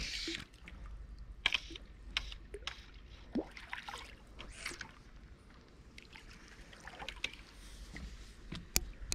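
Hooked crappie splashing at the water's surface as it is reeled in. The short, irregular splashes are biggest right at the start, and sharp clicks are scattered between them.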